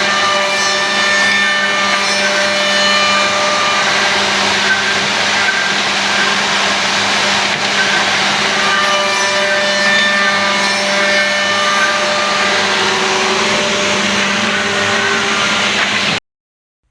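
Two-head CNC tenon milling machine running: a steady whir of spindle motors and cutters over a constant hum, with high whining tones that come and go. It stops suddenly near the end.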